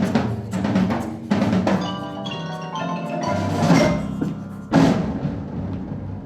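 Percussion music: drums struck with pitched, bell-like mallet notes over them, and heavy hits at the start, just before four seconds in and again shortly after.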